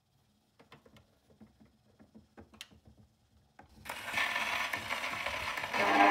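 Faint mechanical clicks from a 1938 portable wind-up gramophone as its tonearm and soundbox are handled over the spinning 78 record. About four seconds in, the needle meets the record and a loud hiss of surface noise starts, with the first notes of the recording coming through near the end.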